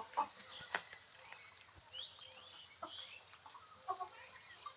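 A steady high cricket trill, with a few short, soft clucks and calls from Kadaknath chickens scattered through it.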